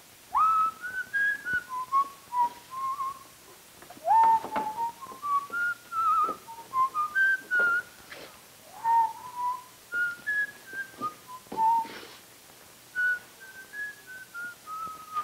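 A man whistling a jaunty tune in short stepped notes, with upward swoops into several phrases. A few knocks sound under the tune.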